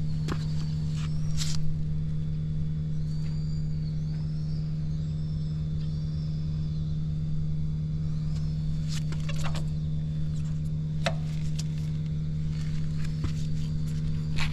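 Suzuki GN125H's 125 cc air-cooled single-cylinder four-stroke engine idling steadily and evenly. The seller describes it as free of abnormal noises.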